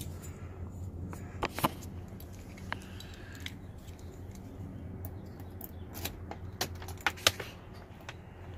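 A set of keys jangling and clicking in a hand at a truck's ignition switch, a few sharp clicks scattered through, over a steady low hum.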